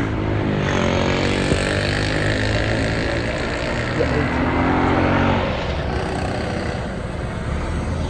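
Traffic noise heard from a moving car: steady road and engine noise, with engines changing pitch around it twice.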